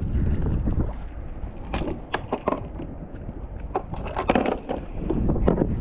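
Pliers clinking and clicking against a lure's hooks as they are worked out of a bluefin trevally's mouth on a plastic kayak deck, a scatter of irregular sharp clicks and knocks over a low wind rumble on the microphone.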